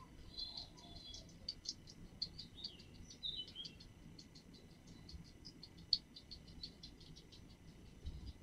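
A guinea pig chewing pieces of apple and vegetables: faint, irregular crunchy clicks, several a second, with a couple of brief high chirps.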